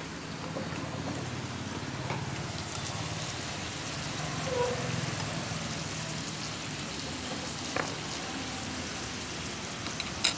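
Beef and vegetables sizzling and bubbling in broth on a hot tabletop grill pan, a steady crackling hiss. A single sharp click comes near the end.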